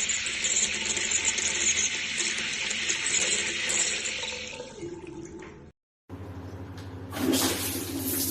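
Water running through plumbing. The steady hiss fades out about five seconds in, and after a short break a steady low hum starts, with water rushing again from about seven seconds.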